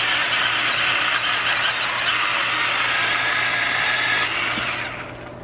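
Milwaukee Fuel mini battery chainsaw cutting through a log: a steady, high rasp of the chain in the wood that ends a little after four seconds in, then fades out as the saw winds down.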